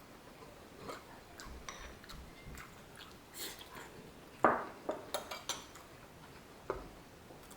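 Eating at the table: utensils clicking against dishes, with chewing. A sharp clack about four and a half seconds in is followed by a quick run of lighter clicks, and another clack comes near the end.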